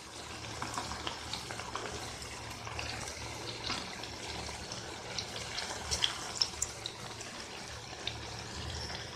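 Batter-coated cauliflower florets deep-frying in oil: a steady sizzle with scattered small crackles and pops, and now and then the scrape of a perforated steel skimmer turning the pieces over in the pan.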